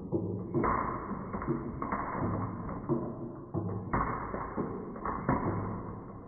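Marbles rolling and clattering down a wooden marble run, with a rapid string of knocks and taps over a low rolling rumble, and louder clacks about half a second in and near four seconds in.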